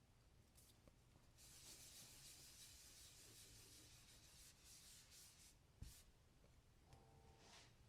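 Faint rubbing and wiping with alcohol to clean oil off, lasting about four seconds, followed by a single soft knock.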